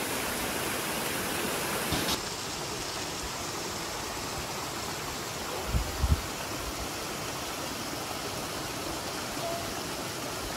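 Steady rushing water of a small mountain waterfall and stream. About two seconds in it turns softer and duller, and a couple of low bumps come near the middle.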